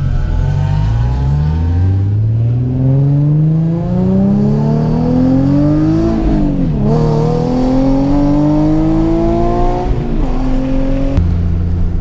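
Infiniti G37's V6 accelerating hard, heard from inside the cabin: the revs climb for about six seconds, drop sharply at an upshift, then climb again. About ten seconds in the revs fall away and settle to a steady cruising note.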